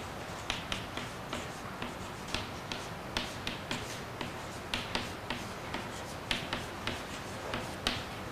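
Chalk tapping against a chalkboard while an equation is written: a run of short, sharp clicks at irregular intervals, two or three a second.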